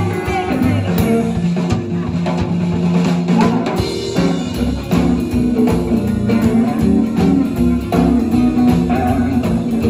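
Live band playing: upright double bass, drum kit, and electric and acoustic guitars, loud and continuous.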